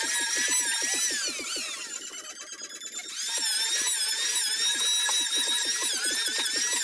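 Electric hand planer running as it is pushed across the face of a solid wood door, a high whine with fast chatter beneath it. About two seconds in the whine slides down in pitch and goes quieter for about a second, then comes back up to full speed.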